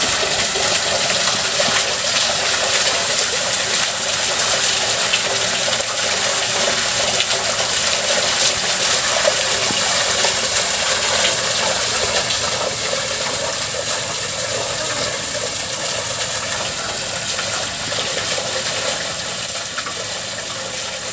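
Water from a wishing-well fountain pouring steadily out of a stone bucket and splashing through a metal grate into the basin.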